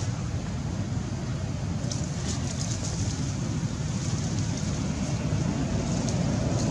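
Steady low rumbling noise of wind buffeting the microphone, with no monkey calls.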